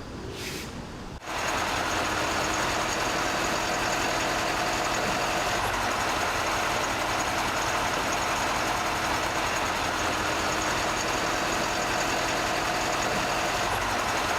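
An engine running steadily, like a heavy vehicle idling, cutting in suddenly about a second in.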